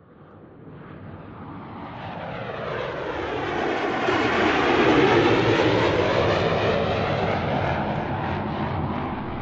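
Aircraft fly-by sound effect: engine noise swells up from silence to its loudest about halfway through, with a sweeping whoosh as it passes, then eases off slightly.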